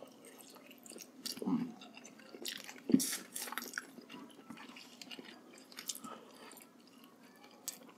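Two people chewing and biting braised pork hock and rice eaten by hand, with scattered wet clicks and smacks from their mouths; the loudest bite comes about three seconds in.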